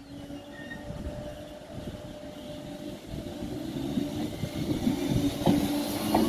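Merseyrail Class 507 electric multiple unit pulling away and approaching, getting steadily louder, with a whine from its traction motors that slowly rises in pitch as it gathers speed. A few sharp clicks of the wheels over rail joints come in the second half.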